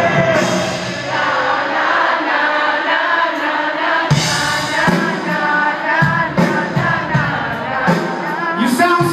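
Live rock band music with singing, heard loud from among the audience in an arena.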